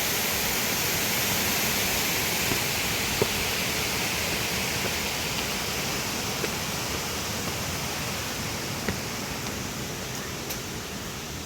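Falling water rushing steadily, like a waterfall or reservoir overflow, slowly fading toward the end.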